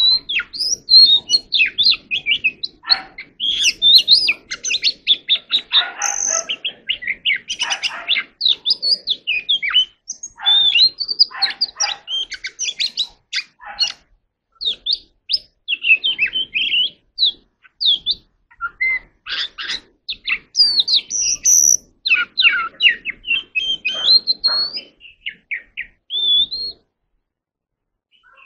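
Oriental magpie-robin singing a long, varied song of rapid whistles, chirps and short slurred notes, which stops a couple of seconds before the end.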